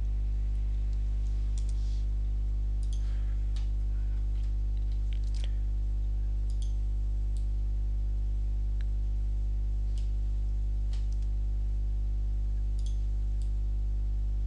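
Steady low electrical hum in the recording, with faint computer mouse clicks and key taps scattered through it, about a dozen, as curve points are selected and moved.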